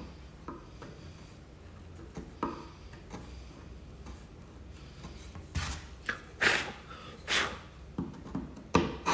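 Steel chisel scraping and paring hardened glue out of a wooden door joint, in a series of short scraping strokes that come louder and closer together in the second half.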